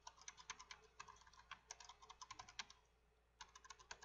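Faint computer keyboard typing: a quick run of keystrokes, a short pause about three seconds in, then a few more keys.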